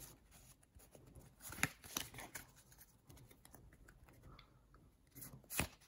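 Pokémon trading cards handled in the hands: faint sliding and rustling of card against card, with a few short sharp snaps, the loudest near the end.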